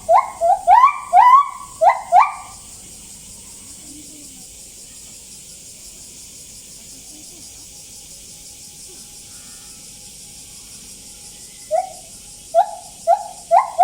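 Bornean gibbon singing: a fast series of short, rising whoops that stops after about two seconds, then starts again near the end and quickens. A steady high hiss runs underneath.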